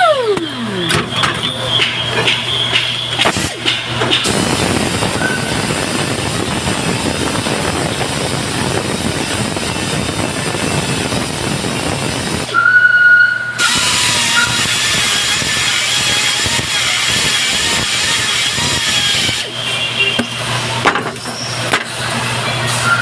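High-frequency TIG welding arc on a Ford Triton cylinder head: a steady crackling hiss over a low electrical hum. The arc breaks off briefly just past halfway, then strikes up again.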